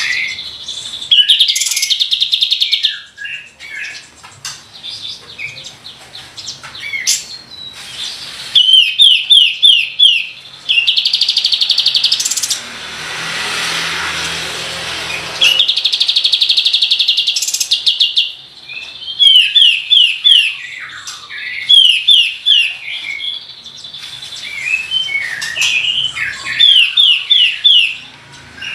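A kapas tembak songbird singing hard: rapid rolls of short, sharp descending notes, repeated again and again, broken by longer buzzy trills.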